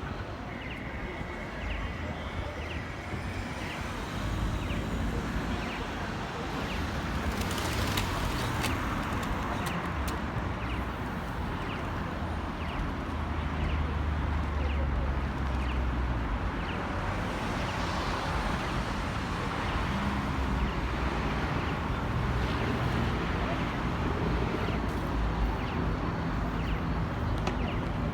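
Street noise at a busy city intersection: vehicles passing with a steady low rumble that swells as they go by, and people's voices in the crowd. A short high chirp repeats about every two-thirds of a second throughout.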